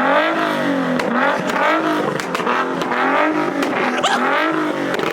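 Car engine being revved over and over, its pitch climbing and dropping about once a second, with a short high whistle about four seconds in.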